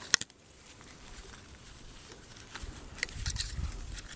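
Gloved fingers handling copper wire as it is fed through the core window of a microwave oven transformer. A sharp click comes just after the start; from about halfway on there are light scraping clicks and low rustling.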